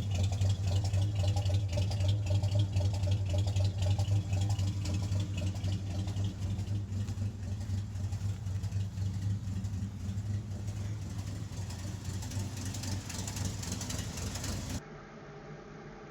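1952 REO M35 deuce-and-a-half's gasoline six-cylinder engine running steadily with a strong low hum. The sound cuts off abruptly about 15 seconds in, giving way to much quieter room sound.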